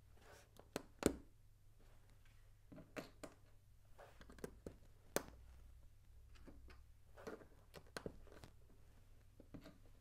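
Plastic LEGO Technic parts clicking and tapping as they are handled and fitted together: scattered sharp clicks with soft rustling between them, the loudest pair about a second in.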